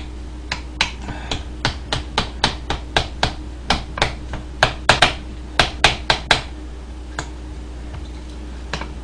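Metal spoon clinking against a ceramic bowl while a seasoned seaweed mixture is stirred: a quick run of sharp clicks, about three or four a second, that stops about six and a half seconds in, with one more clink a moment later.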